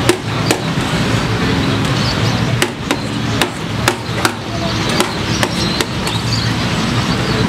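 A metal ladle clinking against a steel serving platter and small steel bowls as cooked cow trotters (paye) are scooped and served: about ten sharp, irregularly spaced clinks over steady background noise.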